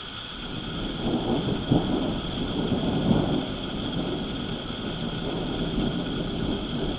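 Rolling thunder: a deep rumble that builds about a second in, peaks with a couple of louder cracks and rolls on.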